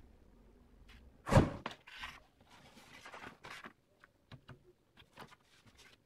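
Handling noises from a stone and sandpaper: one loud thump about a second in, then short scraping and rustling sounds and a few small clicks.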